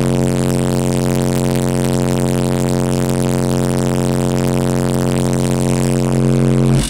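Two Soundstream XXX 15-inch subwoofers, powered by a Power Acoustik EG1-10000D amplifier on a 1-ohm load, playing a 45 Hz test tone at full output during a clamp test. The tone is a loud, steady buzzing drone with a stack of overtones, and it cuts off suddenly near the end.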